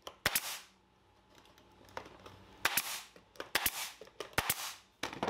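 Pneumatic brad nailer firing about five times, driving brad nails into cedar fence-picket boards; each shot is a sharp snap with a brief hiss of air after it.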